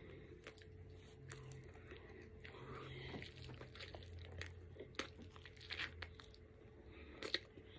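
Close-up eating sounds of biting into and chewing an everything bagel sandwich with egg, cheese and chorizo: scattered small crunches and clicks.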